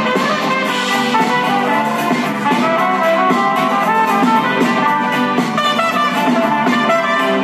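Live band playing an instrumental passage, with violins, electric guitars, bass and drums together and a horn-like lead line.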